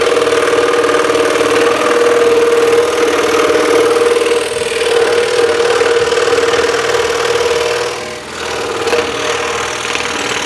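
Axminster Trade scroll saw running, its reciprocating blade cutting through a thick block of wood: a steady hum with one strong tone. The level dips briefly about eight seconds in.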